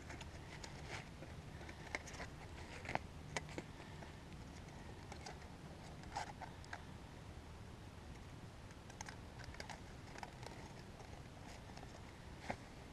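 Scattered light clicks and metallic taps as a folding sheet-metal stove's hinged panels are unfolded and pinned together with a wire rod by hand. The clicks are faint and irregular, with a few sharper ones about three seconds in and near the end.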